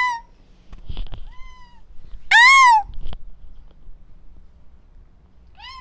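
Domestic cat meowing several times: a meow tailing off at the start, a fainter one just after a second in, a loud drawn-out meow about two and a half seconds in, and a short one near the end. There are a couple of faint knocks between the calls.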